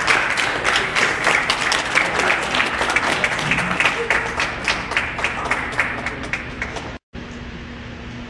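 Audience applauding: dense clapping that thins out toward the end. It breaks off at a sudden cut, after which a steady room hum remains.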